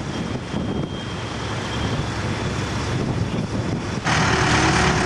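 Engine of heavy construction machinery running, with wind buffeting the microphone. About four seconds in, a loud steady hiss starts suddenly.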